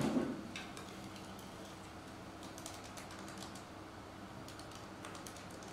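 Faint, scattered light clicks and taps in short clusters, over a low steady room hum.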